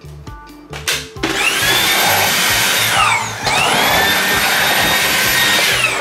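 Dreame V11 cordless stick vacuum switched on twice. Each time the motor whines up to speed, runs for about two seconds and winds down, with a brief dip between the two runs. A couple of clicks come before the first start, and background music runs underneath.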